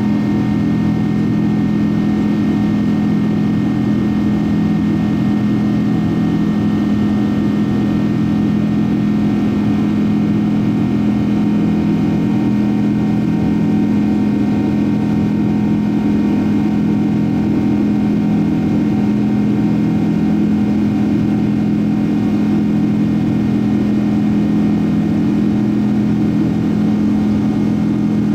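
Steady in-cabin drone of a Boeing 777-200 climbing after takeoff: the jet engines' low hum with several steady tones over an even rush of noise, unchanging throughout.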